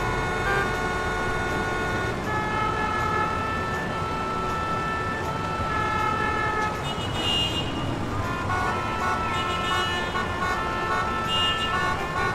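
Road traffic heard from inside a car, with long, steady horn tones at several pitches sounding over the rumble.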